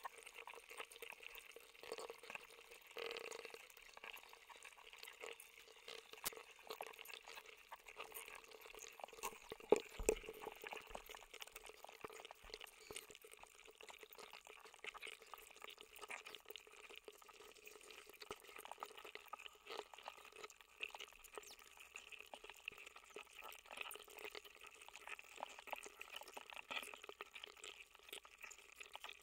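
A block of ice melting in water, heard through contact microphones frozen inside it: a dense, continuous crackle of tiny clicks and pops. A few sharper, louder clicks come about ten seconds in.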